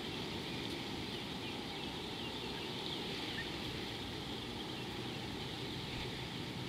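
Faint bird chirps, many short calls scattered throughout, over a steady low rush of outdoor background noise.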